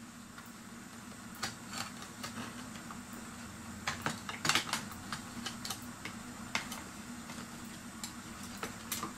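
Scattered light clicks and knocks of clock parts being handled as the mechanism of a vintage Master Crafters fireplace clock is pushed and worked loose from its case, a cluster of sharper clicks about four to five seconds in. A steady low hum runs underneath.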